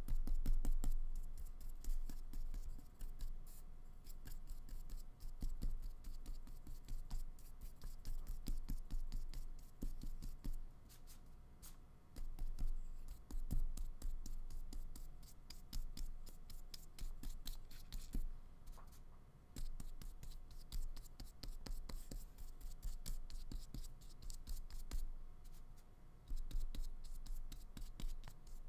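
Small paintbrush stroking acrylic paint onto paper: soft, irregular scratchy brushing strokes, with light knocks of the hand and brush against the table.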